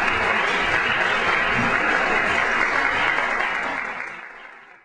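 Audience applauding with dense, steady clapping that fades out near the end.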